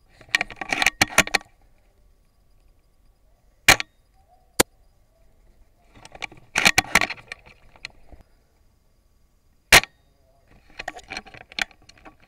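VSR-10 spring-powered bolt-action airsoft sniper rifle firing two single sharp shots, about six seconds apart. Between and after the shots comes a quick clatter of clicks as the bolt is worked to cock the spring for the next shot.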